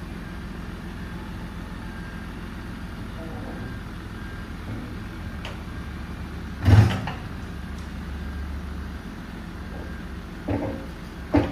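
Diesel engine of a Mercedes Atego hook-lift truck running steadily under load while its hydraulic hook arm pulls up a container heavy with concrete. About two-thirds of the way through comes one loud metallic bang, followed near the end by two smaller knocks.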